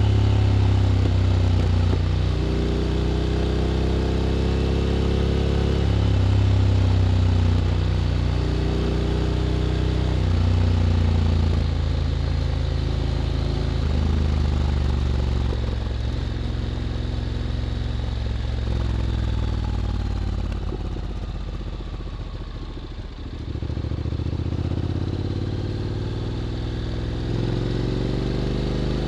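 Honda X-ADV 750 parallel-twin engine breathing through an SC-Project titanium slip-on exhaust, accelerating up through its automatic gearbox with the pitch climbing and dropping back at each shift. About two-thirds of the way through it eases off and slows, then pulls away again near the end.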